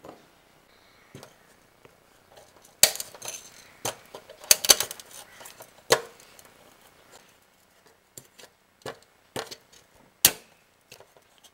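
Hard kitchenware being handled: irregular sharp clinks and knocks, a handful of louder strikes among lighter taps.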